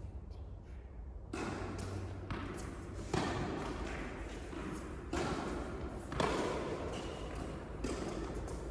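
Tennis ball being struck by rackets and bouncing on an indoor court, a series of sharp hits about a second apart over a steady low hum of the hall.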